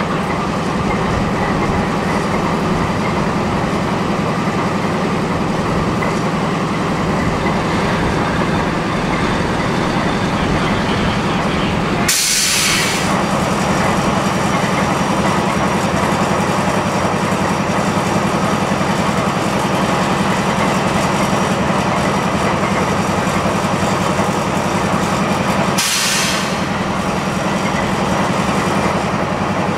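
GE B32-8 diesel-electric locomotive's 12-cylinder engine idling with a steady low hum. Two short hissing bursts break in, about twelve seconds in and again near the end.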